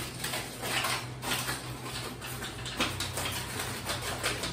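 Aluminium foil crinkling and rustling as it is handled over a baking pan, with a few light knocks.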